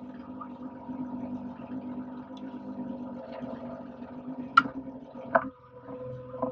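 Steady hum of the fishing boat's engine, with two sharp knocks about a second apart near the end as a lobster pot comes aboard onto the rail; after the second knock the lower part of the hum drops away.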